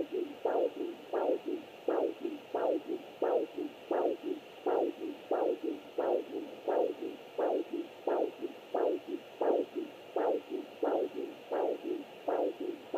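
Heartbeat picked up by a fetal Doppler: steady, even pulses, about one and a half strong beats a second, each followed by a weaker one.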